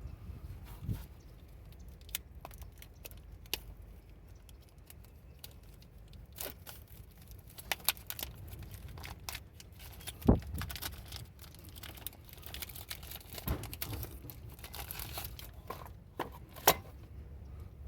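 Crinkling and tearing of packaging as new brake pads are unpacked, mixed with scattered clicks and knocks of small metal parts being handled. A sharp knock about ten seconds in and another near the end stand out.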